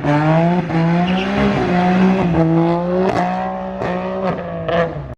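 A sports car's engine revving hard as it pulls away, its pitch climbing and dropping back several times as it shifts gears. Sharp exhaust cracks come through in the second half, and the sound cuts off abruptly at the end.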